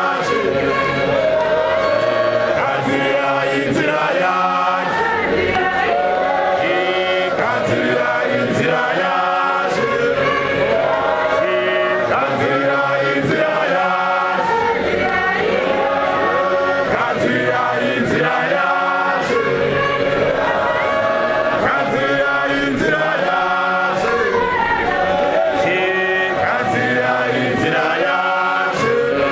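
Large congregation of men singing a Shona church chorus together, many voices at once in phrases that break and restart every couple of seconds.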